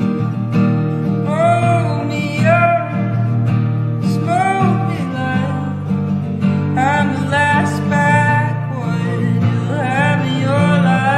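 Music: a strummed acoustic guitar under a lead melody that glides and bends between notes, in phrases of a second or two.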